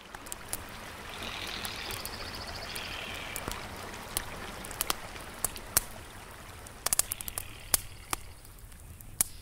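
Rushing creek water running over rocks, with a small campfire crackling close by: sharp pops come irregularly throughout.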